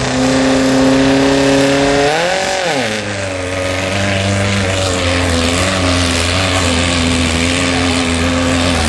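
Rail buggy engine running at steady revs, revving up and dropping back about two seconds in, then running steadily at a lower pitch.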